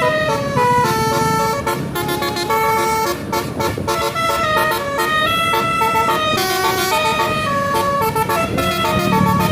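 Tour bus's basuri 'telolet' musical horn playing a continuous melody, its notes stepping up and down in quick succession.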